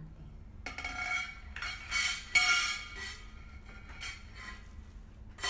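Metal parts of a single-pole garment rack clinking and scraping against each other as it is put together. Several short rattling clatters with a ringing metallic tone, the loudest a little over two seconds in and another near the end.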